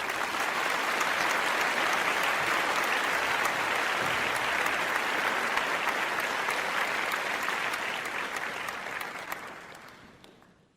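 A crowd of people applauding: dense, steady clapping that fades away over the last two or three seconds.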